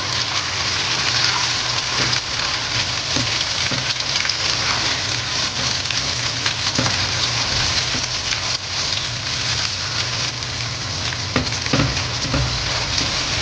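Cubed raw meat searing in hot oil with fried onions in a nonstick wok: a steady, dense sizzle, with a few faint knocks as a silicone spatula stirs it.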